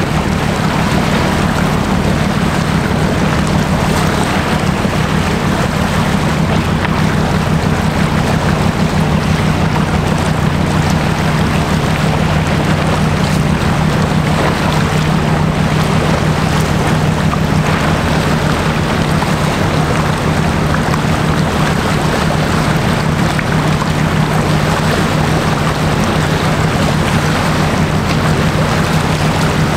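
A passing general cargo ship's diesel engine makes a steady low drone with a fast, even pulse. It sits over a constant hiss of wind and water.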